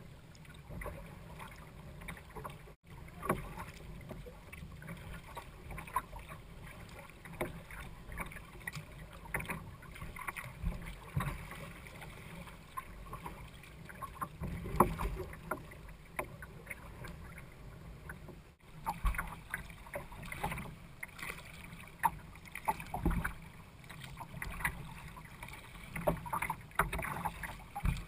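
Choppy water slapping and splashing irregularly against the bow of a small boat, heard from a camera on the bow, with some wind noise on the microphone.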